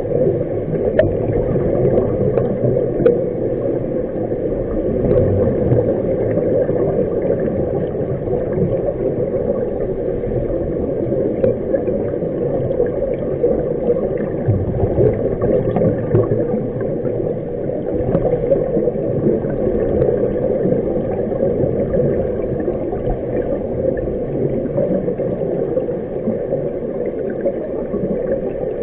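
Steady, muffled underwater noise picked up by a submerged camera, with the gurgle of a scuba diver's exhaled regulator bubbles.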